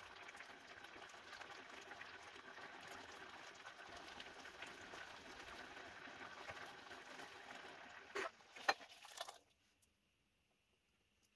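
Raspberry jam simmering in a saucepan on a portable butane burner: a faint, steady bubbling crackle. Near the end come a couple of knocks as the pan is handled, then the sound stops abruptly.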